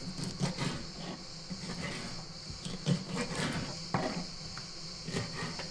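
Soft handling noises and scattered small clicks and knocks as a raw squid is pulled apart by hand, over a steady high drone of insects.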